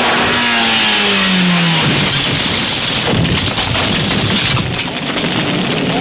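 Film sound effects of a car crash: an engine note falls steadily in pitch over the first two seconds as the car flips in a fireball, over a loud, dense rush of explosion and fire noise, with a run of clattering impacts from about three seconds in.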